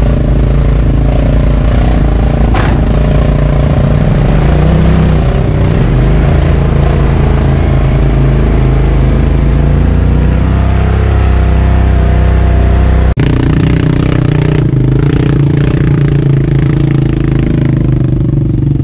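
Off-road vehicle engine running and revving under load as it crawls up a steep, rutted dirt climb, pushed along by several people. The engine pitch rises and falls, with a sudden cut to a similar engine sound about thirteen seconds in.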